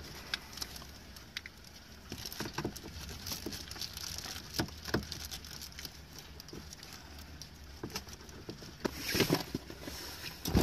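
Crinkling and small clicks of a reflective foil window cover being handled and pressed into a Jeep's side window, with a louder rustle about nine seconds in.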